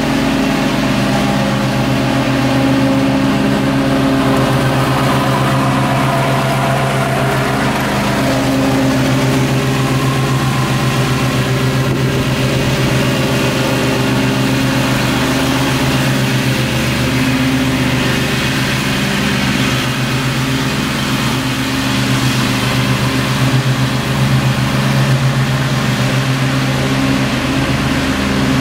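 Engine of a Gravely zero-turn riding mower running steadily at working speed while mowing grass.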